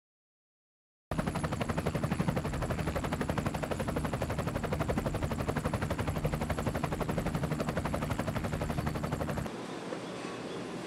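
Silence, then about a second in a helicopter's rotor chopping in a rapid, steady beat. It cuts off about nine and a half seconds in, giving way to quieter outdoor background noise.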